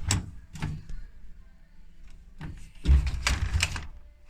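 A display dishwasher being handled: a few light clicks, then a loud rattling slide about three seconds in, like a rack or door moving on its runners.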